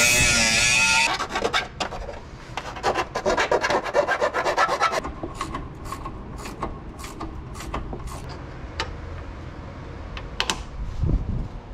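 Hand-tool work on a rear shock mount: a pitched whine cuts off about a second in, then about four seconds of rapid metal clicking and scraping follow, then scattered single clicks and a low thud near the end.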